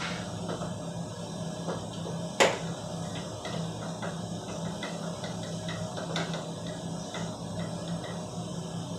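Hand work inside a ceiling-mounted air-conditioner unit: one sharp knock about two and a half seconds in and several lighter clicks of a tool or part against the casing, over a steady low hum.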